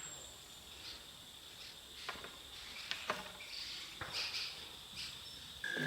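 Night insect chorus of crickets, a steady high trill. A few sharp clicks come about two, three and four seconds in, and a short steady tone starts near the end.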